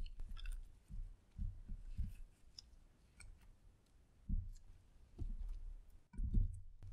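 Clear slime being pressed and squished by hand in a glass dish over crushed red eyeshadow: irregular soft squelches with small clicks and pops, pausing briefly near the end.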